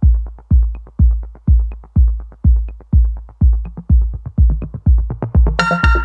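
Background electronic music with a steady kick-drum beat about twice a second; a bright synth chord comes in near the end.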